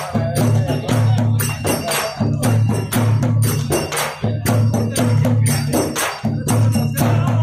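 Several large Rajasthani chang frame drums beaten by hand in a steady rhythm for Holi dhamal, with deep strokes about twice a second and lighter strokes between, and voices singing along.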